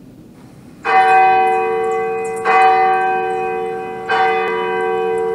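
A church bell struck three times, about a second and a half apart, each strike ringing on and slowly fading into the next.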